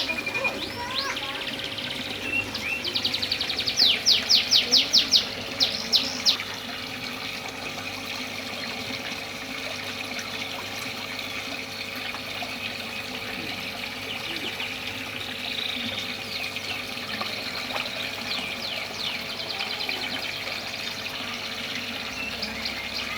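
Canary singing in fast trills of rapidly repeated high notes, loudest in the first six seconds and fainter again later, over the steady sound of running water.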